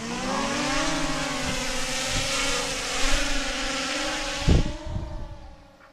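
DJI Mini 3 Pro quadcopter's motors and propellers whining as the drone is launched from the hand, the buzz rising in pitch at the start and then holding steady before fading away near the end. A low thump comes about four and a half seconds in.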